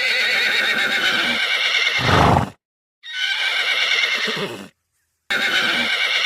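Horse neighing: three whinnies with short silent gaps between them.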